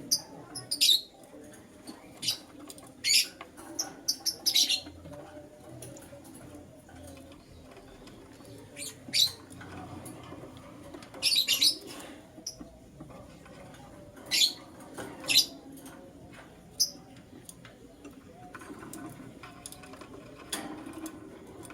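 Young lovebirds giving short, sharp high-pitched chirps in scattered clusters of one to a few calls, spaced a second or more apart.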